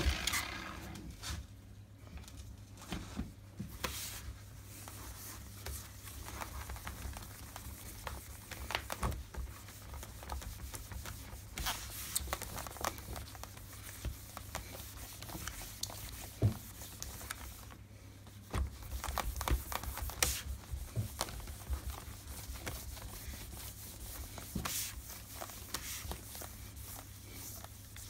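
A cloth wiped by hand over a laptop lid: irregular rubbing and scuffing with occasional light knocks and clicks.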